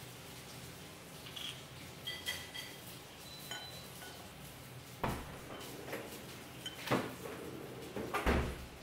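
Small plastic bottle and a stemmed drinking glass being handled on a table: a few light clicks and clinks with short ringing tones, then sharper knocks of glass and bottle against the tabletop, the loudest near the end.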